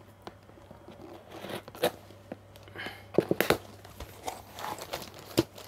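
Hands opening a paper-wrapped parcel: scattered rustling, crinkling and tearing of the paper packaging, with a few sharp clicks and taps, busiest a little past halfway.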